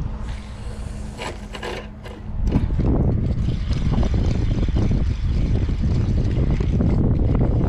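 A cast with a spinning rod: line hisses off the reel for the first couple of seconds. From about two and a half seconds in comes a dense, steady low rumble, the spinning reel being cranked to retrieve the lure under wind buffeting the microphone.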